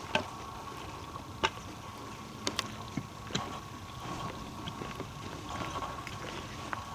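Footsteps on a forest trail: a few scattered sharp clicks over a thin, steady high tone.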